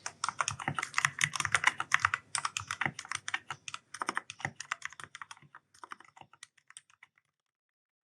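Fast typing on an Ajazz K610T mechanical keyboard with black switches, a dense run of key clicks and bottom-out clacks. It slows and grows fainter from about five and a half seconds in, and stops about a second before the end.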